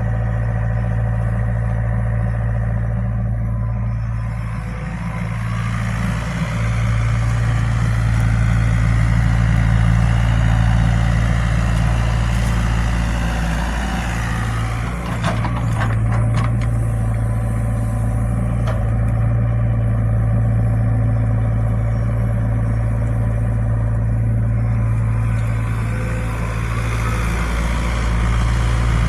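Excavator diesel engine running steadily under working load, its note rising and falling a little. A short cluster of sharp metallic clanks comes about halfway through.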